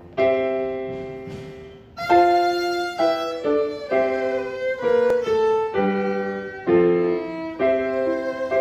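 A newly bought violin being tried out, playing a slow melody of single notes over piano accompaniment. The player finds it slightly out of tune.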